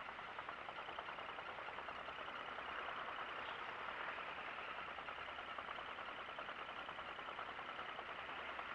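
Ryobi Ultra Power 800 spinning reel being cranked to retrieve a soft lure after the cast: a steady, even, finely ticking whir of the reel's gearing.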